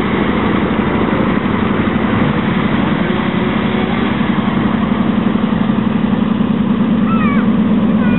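Small engine of a ride-on miniature Intercity 125 locomotive running steadily under load, a little louder near the end as it comes closer. A few short high chirps sound about seven seconds in.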